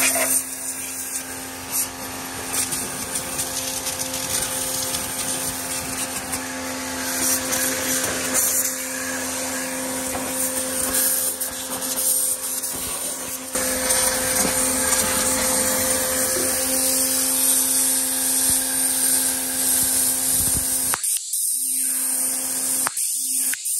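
Kapicon KP 40 pressure washer running with a steady motor hum while its water jet hisses against the tractor's wheel, linkage and gravel. The hum cuts out briefly twice near the end.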